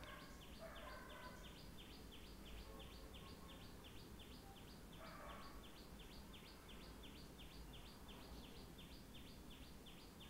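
Near silence with a faint, high chirping that repeats evenly about four times a second.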